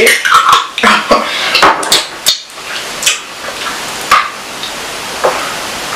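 Tableware clinking during a meal: a handful of separate sharp clicks and clinks, spaced irregularly about a second apart.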